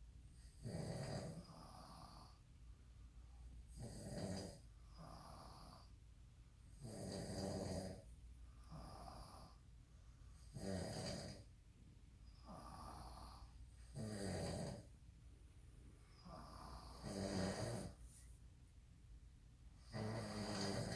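A father and son snoring in their sleep: a strong, rasping snore about every three and a half seconds, with softer breaths between.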